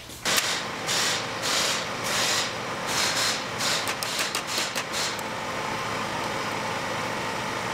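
Small handheld rotary tool running steadily while it is worked against a metal car pedal to clean it. For the first five seconds or so it makes a string of short, harsh scrubbing strokes as it bites the metal, then it runs on evenly.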